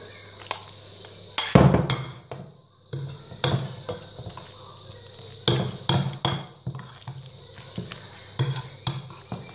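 Spoon scraping and knocking against a white ceramic bowl while stirring grated carrot salad with mayonnaise: irregular clinks and knocks, the loudest about one and a half seconds in.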